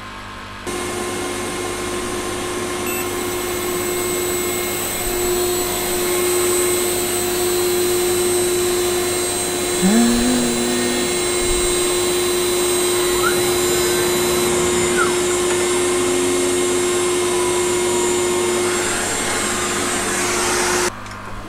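CNC router spindle running with a steady high whine while cutting a circle in 18 mm plywood, with a brief rising whine about halfway through. The sound starts and stops abruptly.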